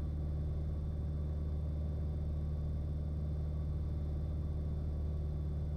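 Steady low drone of a light aircraft's piston engine and propeller in cruise, heard inside the cockpit.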